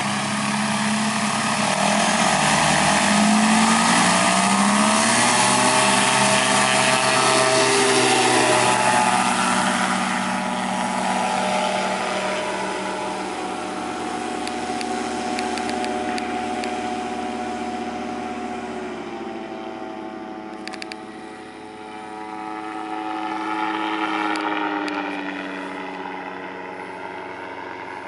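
Kolb Firestar 2 ultralight's Yamaha Phazer 80 hp engine and propeller at full power on the takeoff roll and climb-out, the pitch rising as it accelerates. The pitch then drops as the plane passes and flies away, and the sound fades after a brief swell near the end.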